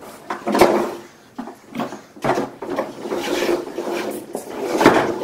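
A large plastic toy dump truck rolling and scraping across a laminate wood floor as a toddler pushes it, a grinding rumble that starts a couple of seconds in. Before that come a few separate knocks.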